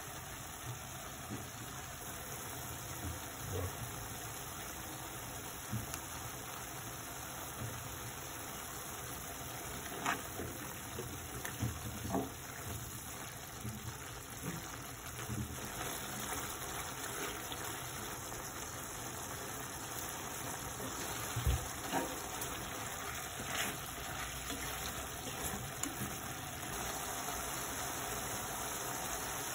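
Pork stir-fry sizzling steadily in a frying pan, with scattered knocks and scrapes of a wooden spoon against the pan as it is stirred.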